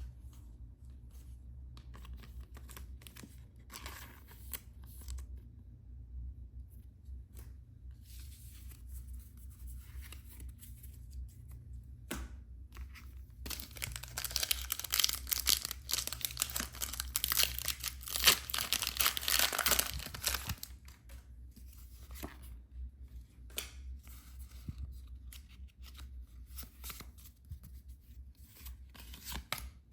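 Packaging being torn open and crinkled by hand. There are light rustles and clicks at first, then from about 13 seconds in a loud stretch of tearing and crinkling that lasts about seven seconds, then softer handling again.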